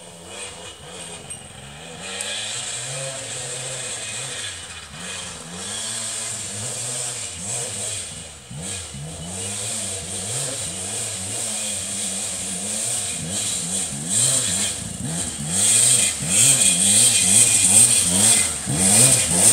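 Dirt bike engine revving up and down again and again, the revs rising and falling faster near the end. It grows steadily louder as the bike approaches.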